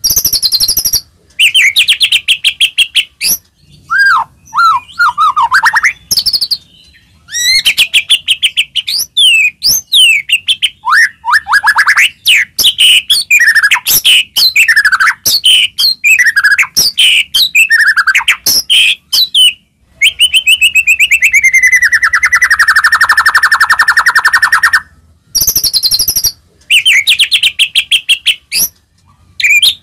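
White-rumped shama (murai batu) singing loudly in its aggressive 'gacor' style: fast phrases of chattering trills, rapid clicks and whistled notes, broken by short pauses, with a long whistle gliding down in pitch about twenty seconds in.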